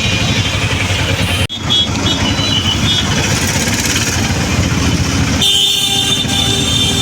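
Auto-rickshaw engine running while riding through traffic, with vehicle horns honking.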